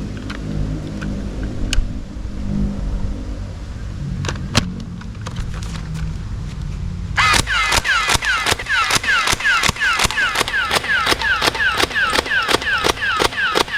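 A low rumble with a few scattered clicks, then from about halfway in a toy machine gun's electronic firing sound effect. It fires a rapid, even string of falling 'pew' shots, about four a second.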